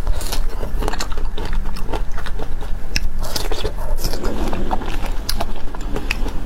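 A person biting into and chewing a strawberry close to the microphone, with many small sharp mouth clicks.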